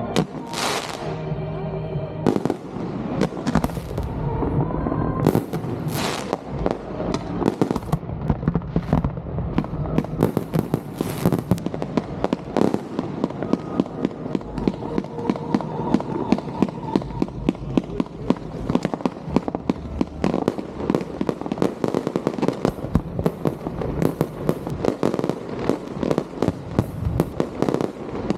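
Fireworks display: aerial shells banging one after another, thickening into a dense run of rapid bangs and crackling from about ten seconds in. Music plays underneath, clearest in the first few seconds.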